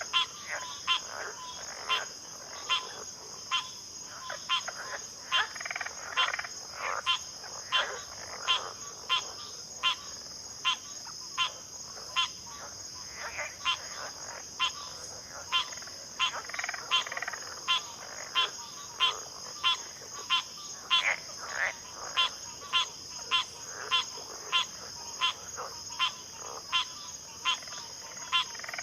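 Backwater chorus of frogs: sharp calls repeating a bit under twice a second, with softer overlapping calls from other frogs, over a steady high-pitched insect drone.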